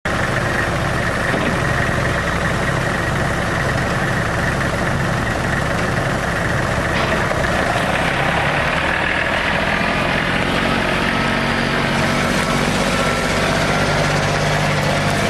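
Kubota L35 tractor's three-cylinder diesel engine running steadily at idle, its note shifting a little about twelve seconds in.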